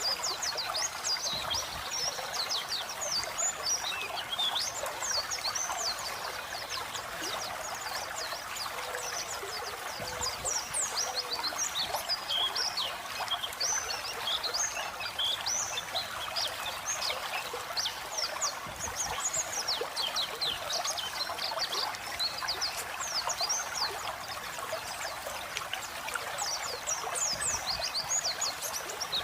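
White-eye (pleci) singing a continuous run of short, high chirps and quick down-sweeping notes over a steady trickle of flowing water.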